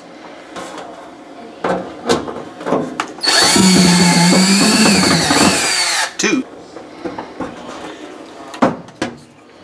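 Cordless drill-driver running for about three seconds, driving a screw into the sheet-metal outer panel of a wall oven. Small clicks and taps of screws being handled and started come before and after it.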